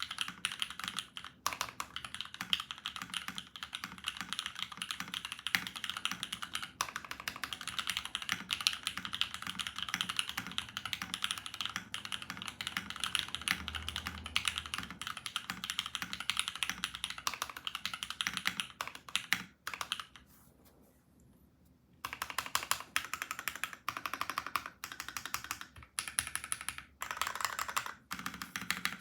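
Mechanical keyboard with Cherry MX Black Ultraglide linear switches lubed with Krytox 205g0, an aluminium plate and PBT blank keycaps, being typed on fast in a continuous clatter of keystrokes. The typing stops for about two seconds about two-thirds of the way through, then resumes.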